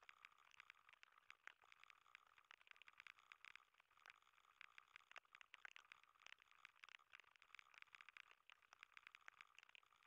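Very faint computer keyboard typing: rapid, irregular key clicks that run on without a break.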